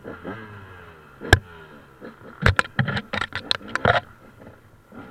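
Off-road vehicle lurching over rough ground: one sharp knock about a second in, then a quick run of knocks and rattles lasting over a second, over the low sound of its engine changing pitch.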